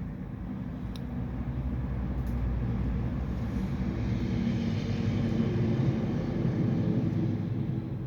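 A steady low mechanical drone with a hum in it, swelling a little near the end.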